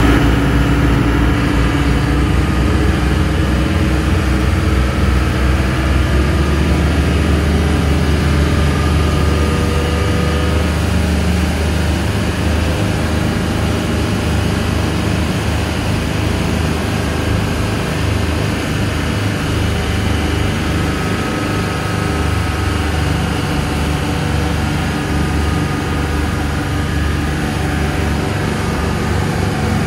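A Sunseeker Portofino 34 motor cruiser's engines running steadily at speed, with the rush of water churning in the wake.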